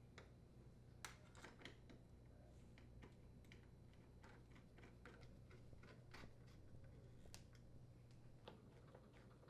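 Faint, scattered small clicks and ticks over a low steady hum: a screwdriver threading screws to join the dishwasher door's inner and outer panels.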